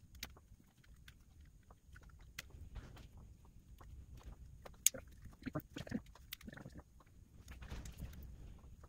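Plastic electrical connectors being handled and pushed together on a steering column: scattered small clicks and rustling, with one sharper click about five seconds in.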